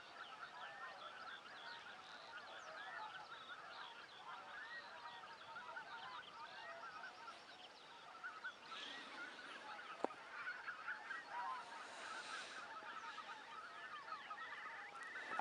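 A large flock of wild geese, with swans among them, calling all at once: a dense, unbroken chorus of overlapping honks carrying from a distance.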